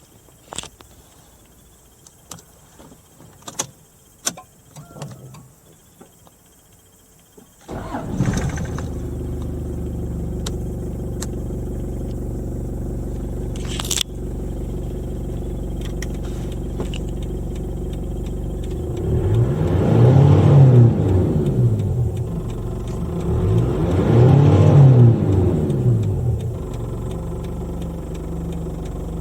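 Toyota Land Cruiser Prado's 1KZ-TE 3.0-litre four-cylinder turbodiesel: a few light clicks and knocks, then it cranks and starts about eight seconds in and settles into a steady idle. It is briefly revved twice, the pitch rising and falling each time, then returns to idle.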